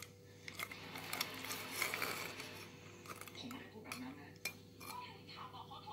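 Metal spoon stirring ice cubes and syrup in a metal bowl, clinking against the bowl and the ice several times, with a swishing stretch about a second in.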